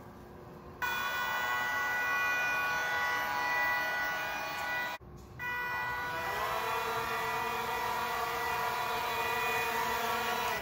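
12-volt brushless CPU fan lifting a small DIY hovercraft, running with a steady multi-tone whine. It cuts in abruptly about a second in, drops out briefly near the middle, and its pitch rises a little as it speeds up before holding steady.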